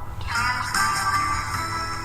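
Background music with sustained pitched notes entering about a third of a second in.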